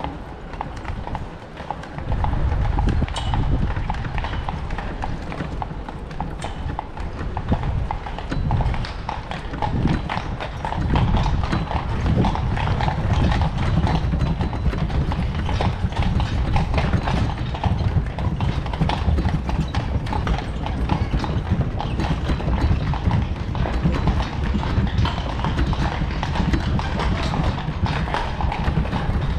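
Horse's hooves clip-clopping on cobblestones, pulling a carriage. A low rumble from the rolling carriage comes in about two seconds in.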